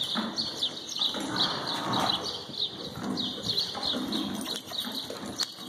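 Small birds chirping over and over in quick succession. Beneath them are the soft, muffled footfalls and shuffling of a horse walking in arena sand.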